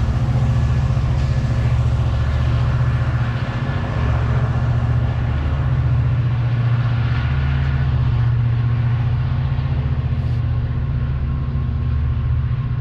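A large engine running steadily with a deep, even rumble.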